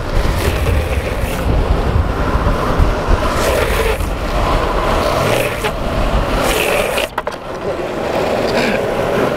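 Longboard urethane wheels rolling fast on asphalt and breaking into slides, a rough scraping hiss that surges several times, with wind buffeting the microphone, strongest in the first half.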